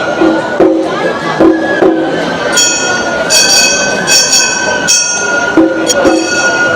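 Gion-bayashi festival music from the Kanko-boko float: a bamboo flute holding long high notes over the repeated clang of small hand-struck bronze gongs (kane).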